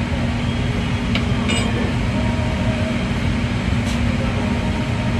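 Steady mechanical drone with a constant low hum, the background noise of a ship's galley: ventilation and onboard machinery. A few faint clicks and a light metallic clink sound over it.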